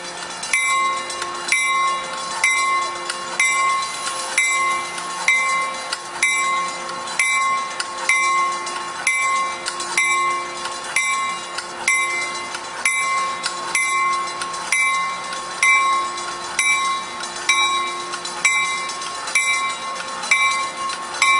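Railway warning bell ringing steadily at about four strikes every three seconds, with a light train rumble, as a Coaster bi-level commuter train rolls slowly in cab car first.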